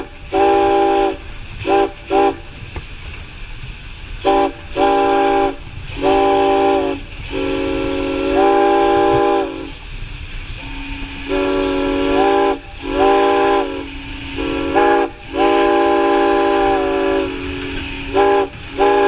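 Steam locomotive whistle blown again and again, about fifteen short and long blasts of a several-note chord, some bending in pitch as they start or stop. Heard from inside the cab, over the steady hiss and low rumble of the running locomotive.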